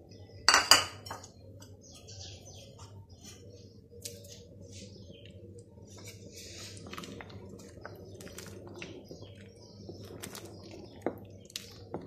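Cookware handled on a stove: a loud clank about half a second in, then light scrapes and taps of a wooden spoon stirring milk in a steel pot, over a steady low hum.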